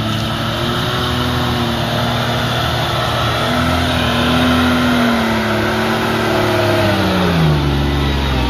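Mercedes-Benz Unimog's engine running steadily under load as it pushes through a muddy, flooded track, with tyres churning through mud and water. The engine note drops about seven seconds in as the truck comes close alongside.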